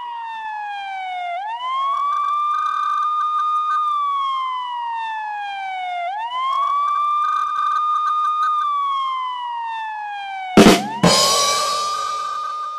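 Police-style siren wailing: it rises quickly, holds a high pitch for a couple of seconds, then slides slowly down, repeating about every five seconds. About ten and a half seconds in comes a sharp loud bang followed by a short rush of noise.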